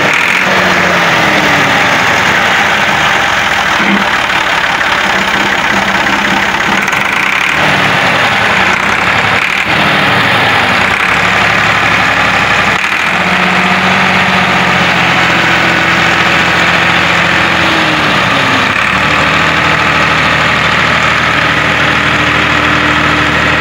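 Massey Ferguson 260 tractor's three-cylinder diesel engine running while the tractor is driven, the engine note rising and falling several times as the revs change.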